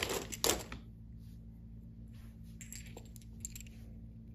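Clear plastic bag crinkling and loose brass 5.56 mm SS109 rifle cartridges clinking together as a hand rummages through the bag, loudest in the first second. Then a few faint clicks and rustles as a single cartridge is picked out and handled.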